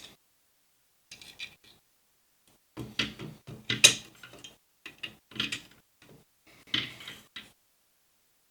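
Metal parts and hand tools clinking and knocking as they are handled, in short irregular clusters with a brief ring after some strikes.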